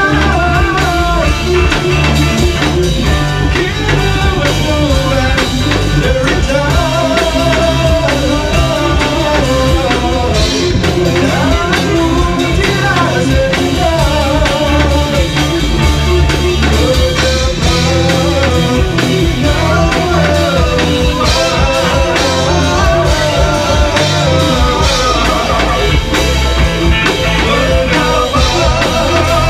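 Live rock band playing a song, with male singing over electric guitar and drum kit, loud and continuous.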